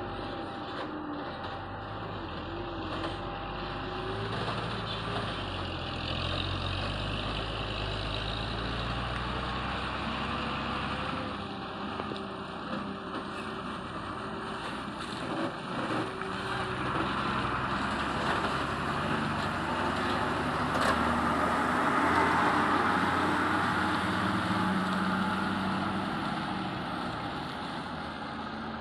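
A truck engine running with road noise, growing louder to a peak about three-quarters of the way through and then fading.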